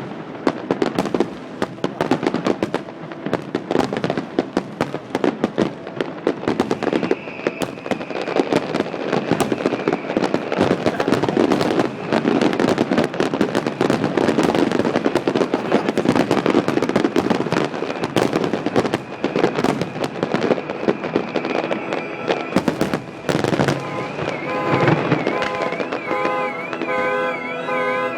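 Fireworks display: a dense, continuous run of shell bursts and crackling, with a high whistle over part of it. Music with sustained notes comes in near the end.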